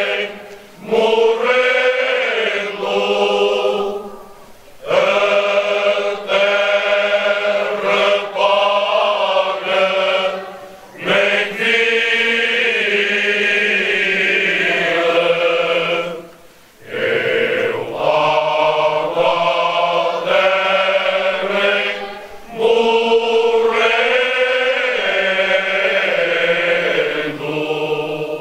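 Background music of chanted vocals: long, held sung phrases with short breaks between them every few seconds.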